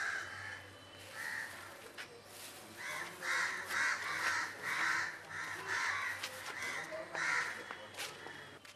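Crows cawing: a couple of single caws at first, then a quick run of about ten caws, roughly two a second, through the middle.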